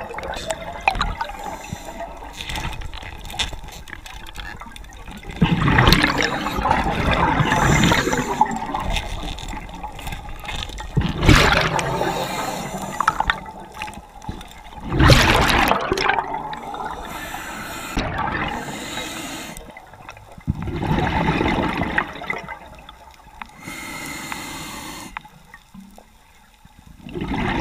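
Scuba diver's regulator breathing underwater: exhaled bubbles rush and gurgle out in loud bursts every four to six seconds, with a quieter hiss between.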